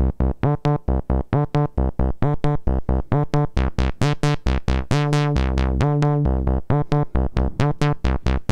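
Reaktor Blocks synthesizer patch played by its own step sequencer: a fast, even run of short plucked synth notes, about four a second, stepping in pitch. A few longer held notes come about five seconds in.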